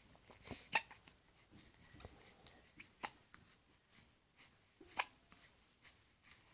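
Hiccups: three sharp, short hiccups about two seconds apart, with fainter small clicks between them.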